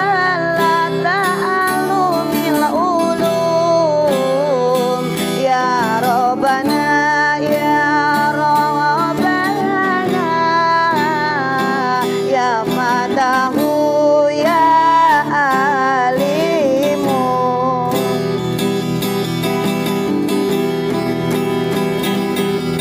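A man singing an Islamic sholawat to his own strummed nylon-string classical guitar. About three-quarters of the way through the voice stops and the guitar plays on alone.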